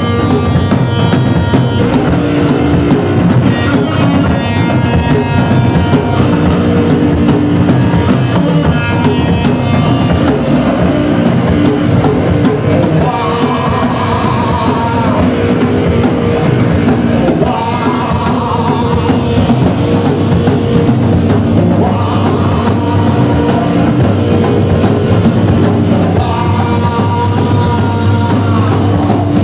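A rock band playing live: electric guitar, bass guitar and drum kit, with a male voice singing in several stretches.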